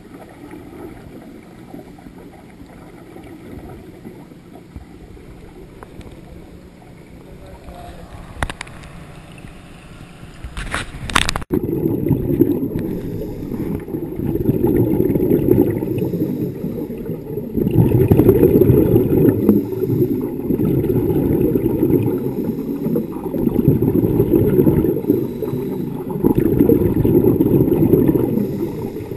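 Scuba diver's regulator breathing heard underwater, with exhaled bubbles rushing out in surges a few seconds long. It is fainter at first, and after a few clicks about a third of the way in it becomes loud and close.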